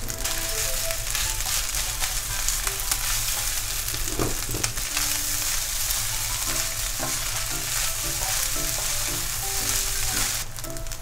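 Fried rice with egg sizzling in a hot nonstick frying pan as it is stirred and tossed with spatulas. The sizzle thins out a little near the end, under soft background music.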